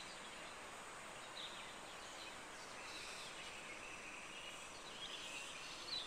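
Faint outdoor ambience: a steady soft hiss with a few faint, brief bird chirps, about a second and a half in, around three seconds, and again near the end.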